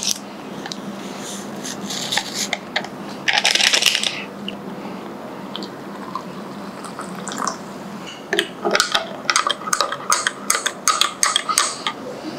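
A coffee sachet rustling as it is cut open with scissors and emptied into a glass mug, then hot water poured in from a kettle. From about eight seconds in, a metal spoon stirs and clinks quickly against the glass.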